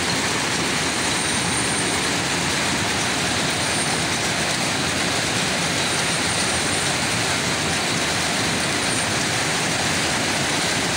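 Jute mill machinery running: a steady, dense mechanical noise with no pauses, as raw jute is fed into the processing machine. A faint high whistle comes and goes several times.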